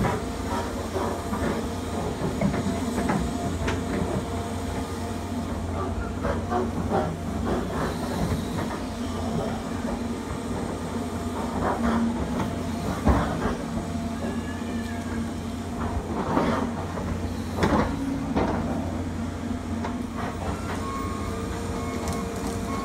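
John Deere tracked excavator's diesel engine running steadily under load while it works into the trees. Irregular knocks and cracks of breaking wood and clanking steel come and go over the engine; the sharpest is about thirteen seconds in.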